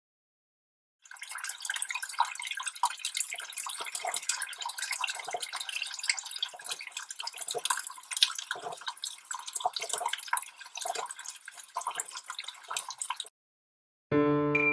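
Water splashing and dripping in a dense, irregular patter of small splashes that cuts off suddenly shortly before the end.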